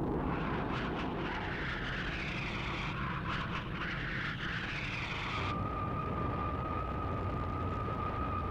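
Jet-like engine roar of science-fiction spacecraft sound effects, starting abruptly, with passing whooshes for the first five seconds or so. It then changes to a steady high-pitched whine over a low rumble.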